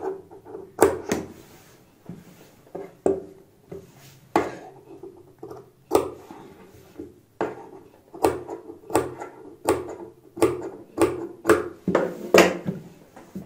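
Large steel tailor's shears snipping a series of short cuts into the seam allowance of a stitched neckline: sharp snips at an uneven pace, roughly one every half second to second. The cuts are clipped up close to the stitching so the curved neck can be turned inside out and lie flat.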